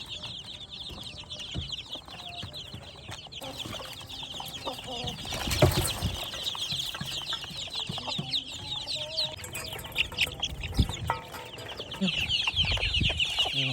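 A flock of two-week-old kampung chicks peeping continuously in a dense, high chorus, louder near the end. There are a few soft knocks, the loudest about halfway through.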